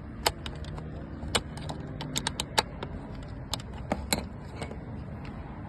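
Nissan Tiida door lock mechanism clicking as it is worked by hand: a string of sharp, irregular clicks, the loudest coming roughly once a second. The lock is being tested after its linkage pin was refitted, and the latch is operating.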